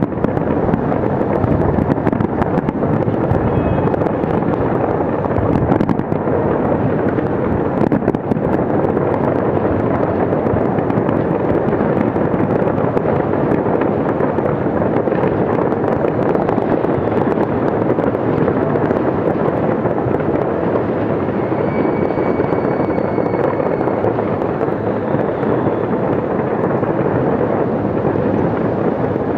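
Fireworks display going off without pause: a dense, continuous rumble of bursts and crackling with no clear gaps. A faint whistle rises above it about three-quarters of the way through.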